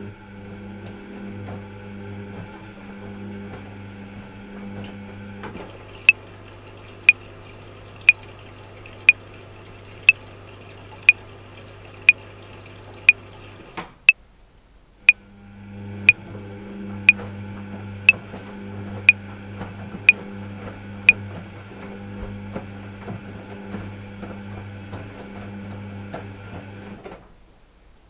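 Top-loading washing machine running with a steady hum. Over it a metronome clicks sixteen times, once a second (60 bpm, four bars of 4/4), starting about six seconds in. The machine sound drops out briefly about halfway through and fades out just before the end.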